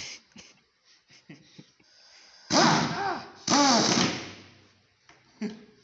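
High-torque Ingersoll Rand impact wrench driving screws into plywood, in two short bursts of about a second each, its pitch rising and falling with each burst.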